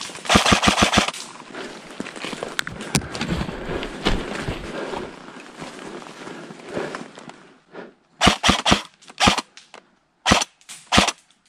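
Airsoft replicas firing. A quick burst of about six shots comes in the first second, then from about eight seconds in a burst of three, a single shot and a final quick pair.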